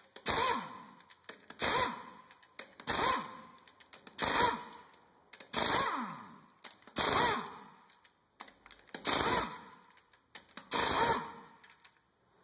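Pneumatic impact wrench spinning lug nuts off a truck wheel: eight short rattling bursts, one nut at a time, about one every second and a half.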